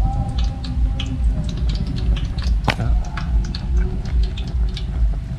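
Hot oil crackling and popping in a wok as battered banana flowers fry: many small irregular ticks over a steady low rumble.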